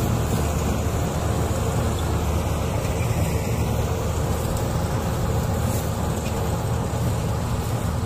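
Combine harvester running steadily as it cuts standing wheat: a constant low engine drone under the rushing noise of the working machinery.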